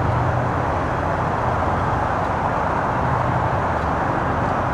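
Steady low engine hum under a constant rushing noise, running evenly without any change.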